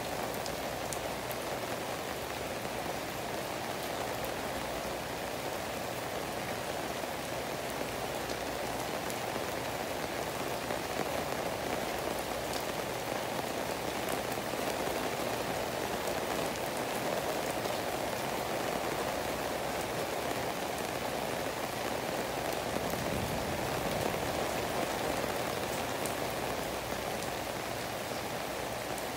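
A steady downpour of rain falling on trees and foliage: an even, unbroken hiss with a few single drops ticking now and then.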